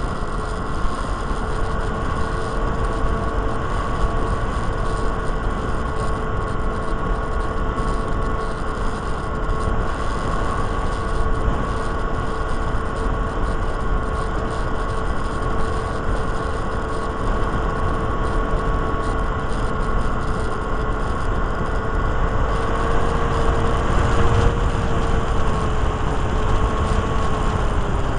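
Small electric motor and propeller of a Micro Interceptor Drone RC plane whining at a steady pitch in flight, heard from on board, with wind buffeting the microphone as a low rumble. The whine climbs slightly about three-quarters of the way through, then drops near the end.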